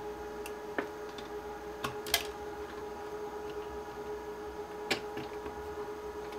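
Wire stripper and stiff copper wires being handled: a few short, sharp clicks, the loudest about two seconds in and another near five seconds. Under them runs a steady hum made of several fixed tones.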